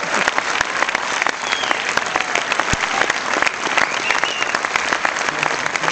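Cinema audience applauding steadily, dense clapping from many hands without a break.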